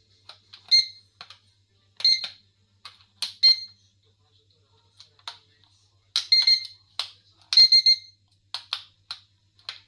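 Toy drone remote controller being switched on and its buttons pressed: short electronic beeps and sharp plastic clicks in an irregular run, about a dozen in all.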